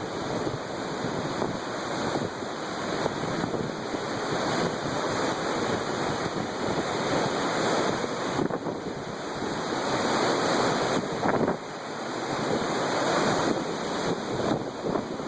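Strong gusting wind of a windstorm, rushing and buffeting the microphone in surges that swell and ease, with a brief lull near the end.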